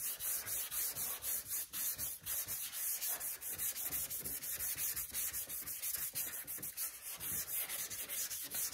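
320-grit sandpaper sanding down a polyester body filler repair on a truck panel with light pressure, levelling the filler with the surrounding bodywork. Quick back-and-forth rasping strokes, several a second.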